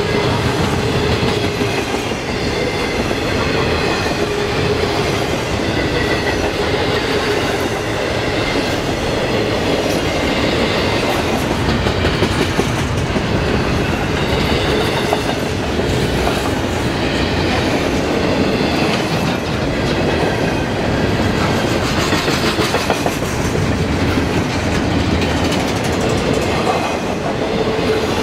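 Double-stack intermodal freight train rolling past at speed: a loud, steady rumble with the clickety-clack of its wheels on the rail, and a high wheel squeal that comes and goes.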